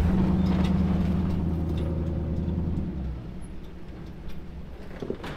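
A vehicle engine idling steadily, then about three seconds in it gives way to a fainter, more distant engine.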